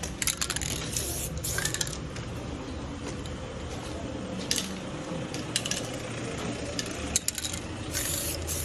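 Metal mixing ball rattling inside an aerosol spray-paint can as it is shaken, in several short bursts, then the hiss of paint spraying near the end.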